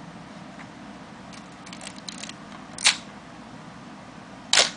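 Mamiya/Sekor 1000 DTL 35mm SLR's shutter and mirror firing twice, two sharp clacks about a second and a half apart, the second a little longer. A few faint small clicks from handling the camera come before the first.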